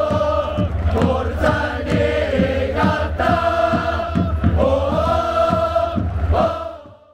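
Away supporters chanting a song in unison in the stand, with evenly spaced beats about two to three a second keeping time; the chant fades out near the end.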